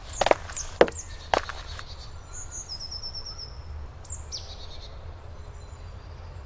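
Birds singing in woodland: a quick trill of short, high notes and a couple of falling whistled notes. A handful of sharp knocks comes in the first two seconds, over a steady low rumble.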